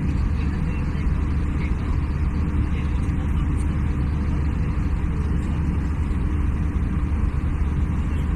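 Steady cabin noise of an Airbus A320-family jet in cruise, heard from inside the cabin over the wing: a constant deep engine drone and airflow rush with a faint steady hum.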